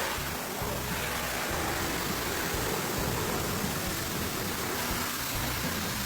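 Steady, even rushing hiss from a running cleaning machine, such as is used in car interior detailing.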